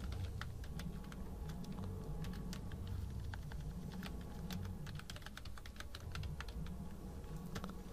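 Typing on a computer keyboard: a run of quick, irregular key clicks over a low, steady background hum.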